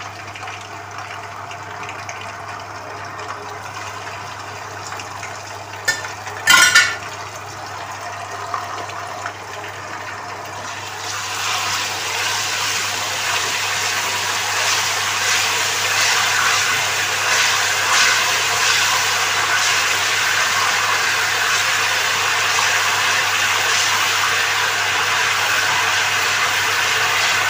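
Ginger-garlic paste and cumin seeds sizzling in hot oil in a nonstick wok, with one sharp knock about six seconds in. About eleven seconds in the sizzle grows much louder and crackly and stays up as the paste is stirred with a spatula.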